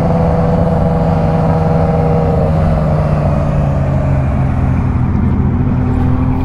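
A motor vehicle's engine running steadily over road rumble, its pitch dropping slightly about two and a half seconds in.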